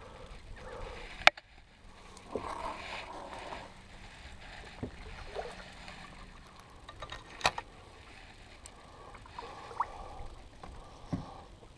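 Water sloshing around a kayak hull, with sharp knocks and clicks from a fishing rod and reel being handled aboard. The loudest knock comes about a second in, with a few more in the second half.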